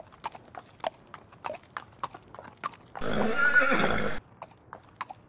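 Sound effect of a horse's hooves clip-clopping, with a loud neigh about three seconds in that lasts just over a second.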